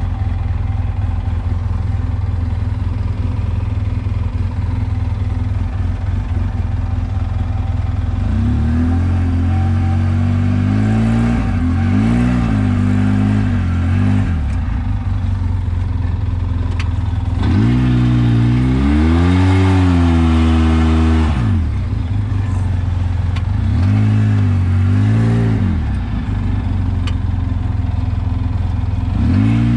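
Polaris RZR side-by-side's engine heard from the cab: a steady low drone for the first several seconds, then revving up and easing off in four or five swells of rising and falling pitch as the throttle is worked on the trail.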